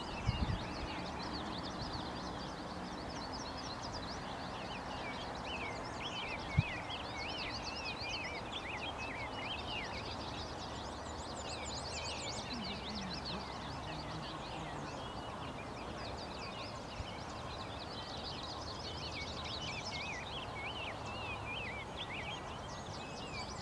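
Several songbirds singing and chirping over a steady outdoor background hiss, with a short knock near the start and a sharper one about six and a half seconds in.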